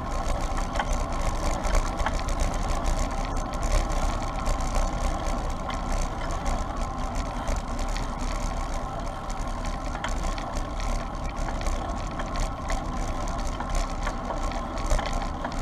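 Steady wind and road noise on a camera riding along with a moving bicycle, a constant low rumble with a faint hum over it; it cuts off suddenly at the end.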